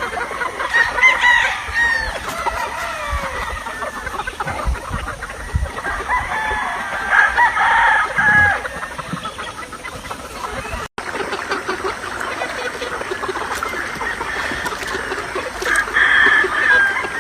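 A flock of free-range chickens: roosters crowing several times over a steady din of hens clucking.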